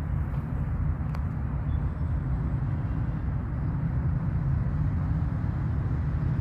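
Steady low rumble of outdoor background noise, with one faint click about a second in.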